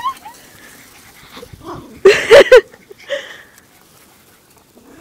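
Puppies play-wrestling, one giving a short burst of loud, high yelps about two seconds in, with a fainter yip just after.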